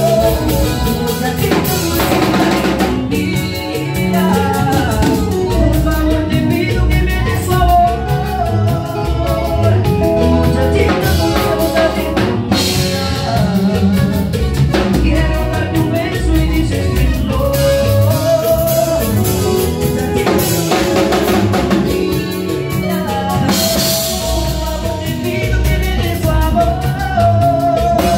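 Live cumbia norteña band playing a medley: a male singer on a microphone over electric guitars and a drum kit, with a steady beat.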